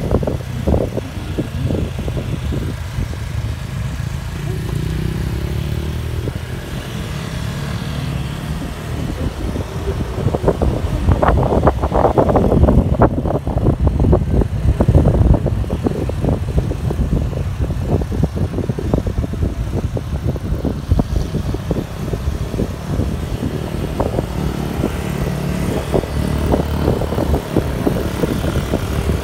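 Wind buffeting the microphone of a phone in a handlebar mount on a moving motorcycle, over the motorcycle's engine running. The buffeting is heaviest about halfway through.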